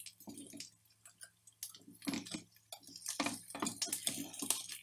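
Irregular light clicks, taps and scrapes of a wooden spatula against a frying pan and a knife spreading butter on toast, quick and chattering as in sped-up footage, coming thicker in the second half.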